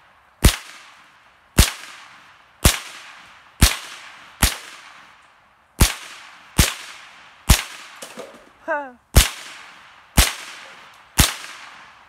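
Smith & Wesson M&P 15-22 semi-automatic .22 rifle firing eleven shots, about one a second, each a sharp crack that trails off; a short pause with a brief yelp about two-thirds of the way through.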